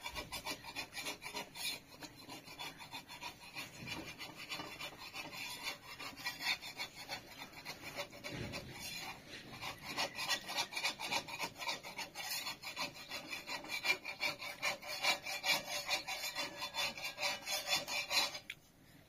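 Rapid, rhythmic rasping strokes, several a second and evenly repeated, like something being scraped or rubbed hard. They stop suddenly near the end.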